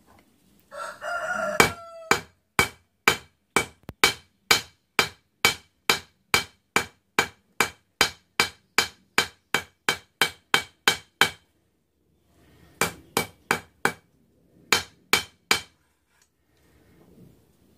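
Hand hammer striking red-hot 5/16-inch round steel bar on an anvil, about two ringing blows a second for some ten seconds while a bend is forged into the bar, then two quicker sets of four blows after a pause. A rooster crows once about a second in.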